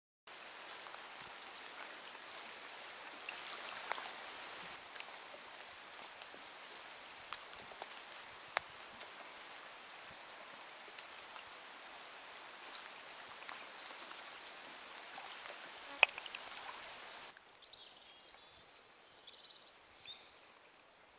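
Rain falling on leaves as a steady hiss with scattered louder drips, the loudest about 16 seconds in. About three-quarters of the way through it gives way to a bird singing quick, high chirping phrases.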